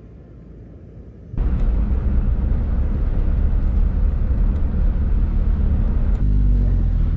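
A car driving, a loud steady rumble of engine, road and wind noise that cuts in suddenly about a second and a half in.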